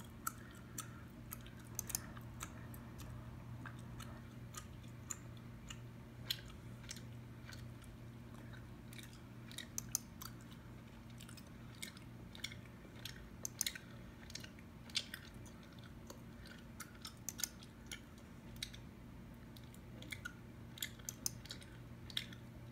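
Gum chewing close to the microphone: irregular, wet smacking clicks of the mouth and gum, some sharper than others, over a steady low hum.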